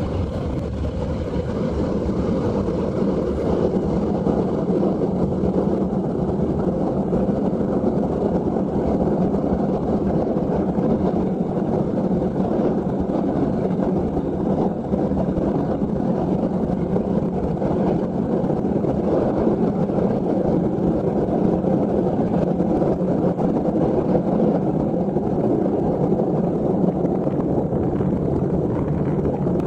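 Steady mechanical drone with a low hum, heard from inside a car's cabin, unbroken and even throughout.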